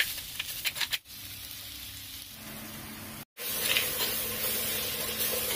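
Chopped onions frying in oil in a heavy black pot, sizzling, with a steel spoon scraping and stirring through them in the first second. The sound cuts out briefly twice, about a second in and just after three seconds, and the sizzle is louder after the second gap.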